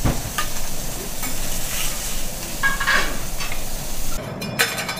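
Steak sizzling on a teppanyaki iron griddle, with metal spatulas knocking and scraping on the griddle as the seared pieces are lifted onto a plate. The sizzle thins out about four seconds in, while the spatula clicks go on.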